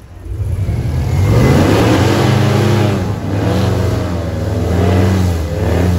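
Airboat engine and propeller revving, the pitch climbing, dipping and climbing again as the throttle is worked.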